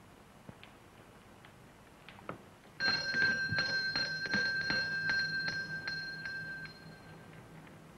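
Front doorbell ringing, its clapper striking over and over for about four seconds, starting suddenly about three seconds in and fading away near the end.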